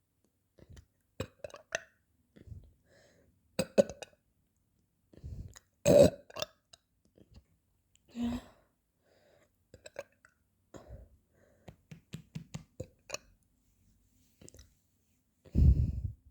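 A person burping several times, the loudest burp about six seconds in and a long low one near the end, with short clicks between.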